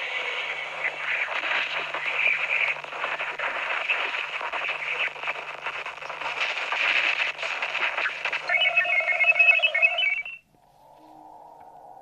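A 'space sound' recording played through a phone speaker: a crackling, radio-static-like hiss. Warbling tones join it a few seconds before the end, and it cuts off suddenly. A quieter, steady humming tone begins near the end.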